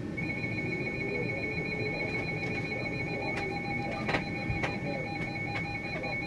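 Rapid, evenly pulsed electronic alarm beeping, starting just after the start, over a steady rushing noise. There is a sharp knock about four seconds in.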